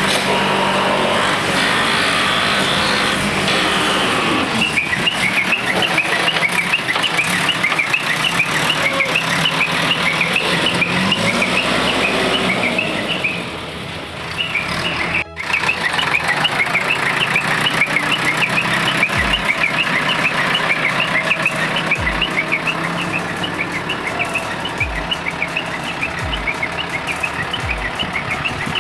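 Heavy diesel machinery running, with a rapid string of short, high beeps, several a second, that break off briefly about halfway and then resume. A few dull low thumps come in the last ten seconds.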